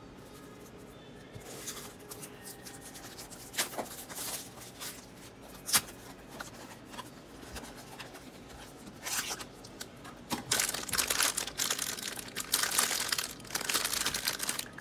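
A Funko mystery-mini cardboard blind box being opened and the shiny black foil bag inside torn open and crinkled by hand. Scattered rustles and clicks with one sharp snap about six seconds in, then dense crinkling and tearing over the last five seconds.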